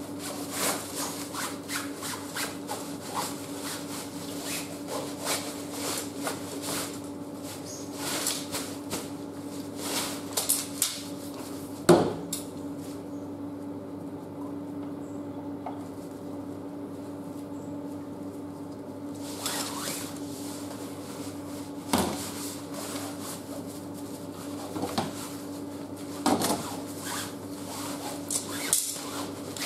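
A camp cot's rail being slid through the sleeve along the edge of its canvas bed: the fabric rustles and scrapes against the pole, with light knocks from the rails. There is a sharp knock about twelve seconds in and another about twenty-two seconds in, and the handling goes quieter for several seconds in between.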